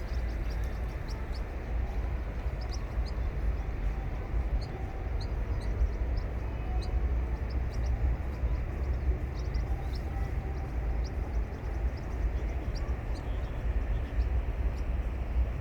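Steady rush of flowing water with a heavy low rumble, and small birds giving many short, high chirps over it.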